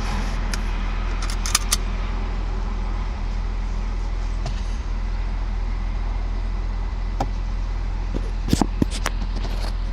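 2015 Ford Focus ST's 2.0-litre turbocharged four-cylinder idling steadily after a cold start; this engine sets a cylinder 1 misfire code within a minute of cold idling. A few light clicks come about a second and a half in and again near the end.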